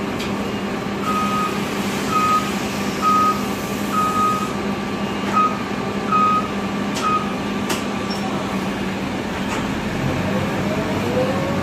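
A 2002 Nova Bus LFS diesel transit bus idling with a steady hum, while an electronic warning beeper sounds about once a second, seven times. Near the end a rising whine starts as an engine speeds up.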